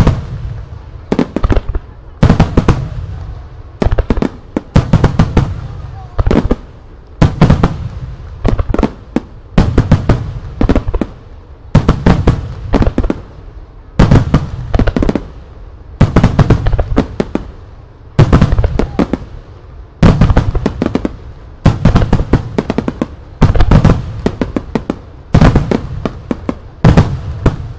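Starmine fireworks barrage: aerial shells bursting in rapid clusters of sharp bangs about every one to two seconds, each cluster trailing into a low rumble.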